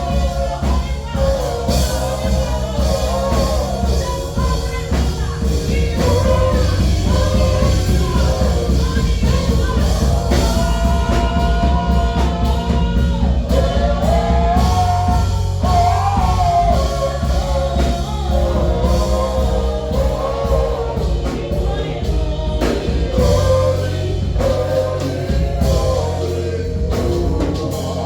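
A choir singing a gospel song with a band of bass guitar and drums playing a steady beat.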